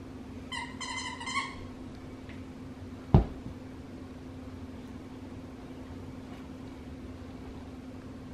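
A plush donut dog toy's squeaker squeaking several times in quick succession as a puppy chews it, a steady-pitched squeal broken into short pulses. About three seconds in comes a single sharp thump, the loudest sound.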